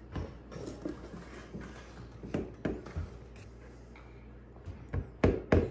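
Light knocks and clicks of an egg and a plastic mixing bowl being handled at a kitchen counter, ending in three sharper taps about a quarter of a second apart near the end.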